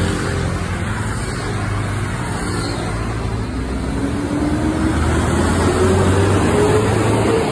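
Mercedes-Benz coach's diesel engine running as the bus drives up and passes close by, with a whine that rises steadily in pitch over the second half as it comes past.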